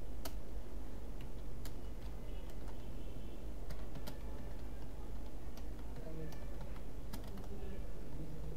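Typing on a computer keyboard: separate key clicks at an irregular, unhurried pace, over a steady low hum.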